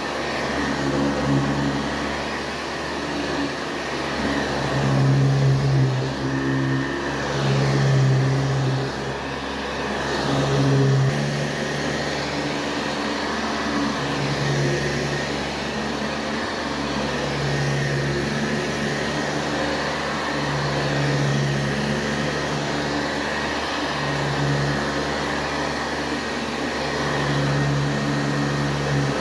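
A 1977 Hoover-built JCPenney Boxtop Convertible upright vacuum cleaner running steadily. Its low motor hum swells and eases every few seconds.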